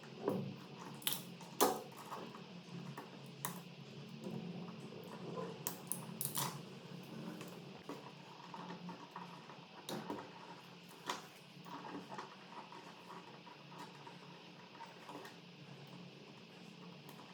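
Scattered light clicks and knocks of wall switches and sockets being handled and worked on, a dozen or so irregular taps, over a low steady hum.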